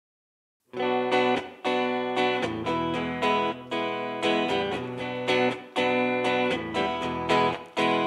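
Solo electric guitar playing a chord-based intro, coming in just under a second in and running in phrases with brief gaps between them.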